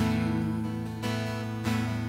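Acoustic guitar strumming chords, with three strums that ring on between them.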